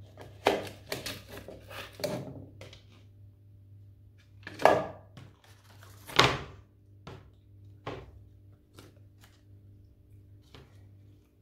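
Plastic plant pots being handled, knocked together and set down: a series of clunks and clicks, the loudest two about five and six seconds in, over a faint steady hum.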